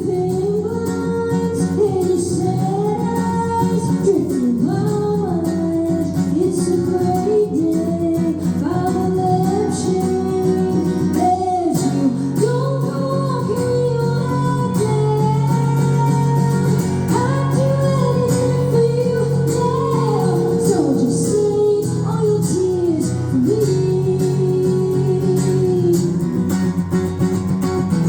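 A woman singing a song live, with guitar accompaniment; the low accompaniment changes about twelve seconds in.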